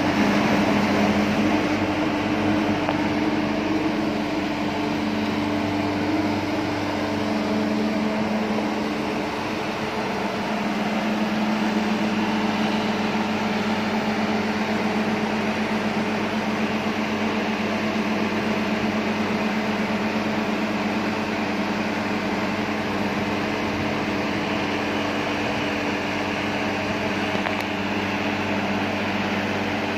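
Mobile boat hoist (marine travel lift) running with a steady mechanical drone as it holds a motor yacht in its slings, its low hum shifting slightly in pitch a couple of times.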